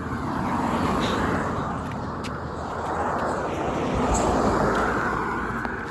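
Vehicles passing on the road, a rush of tyre and engine noise that swells about a second in and again around four seconds as two pass by. No horn.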